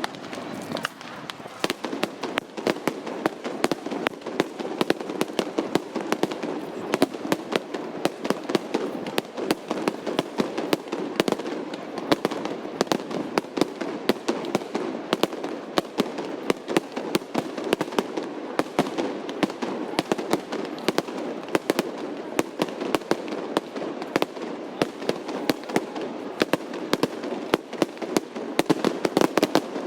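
Fireworks display going off: a dense, continuous run of sharp bangs and crackles, several a second.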